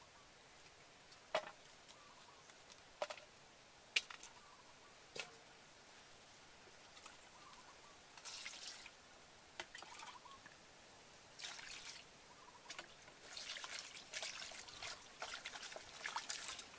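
Water splashing and trickling in a stainless steel bowl as hands wash garlic leaves and red garlic, in repeated short bursts over the second half. A few sharp knocks of bowls or utensils come in the first five seconds.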